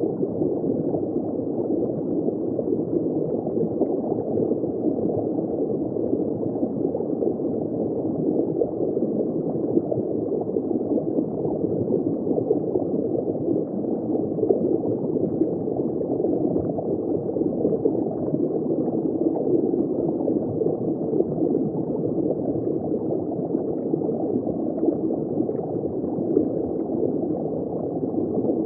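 Underwater ambience of bubbling water, heard from just below the surface: a steady, muffled bubbling with no high end.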